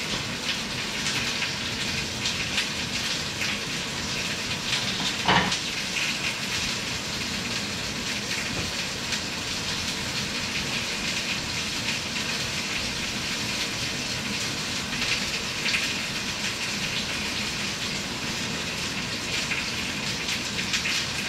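Steady, even rushing hiss like running water, with one short sharp sound about five seconds in.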